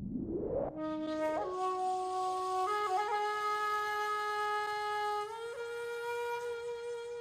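Cartoon koala crying sound effect: a rising whoosh, then one long held wail that steps up in pitch three times.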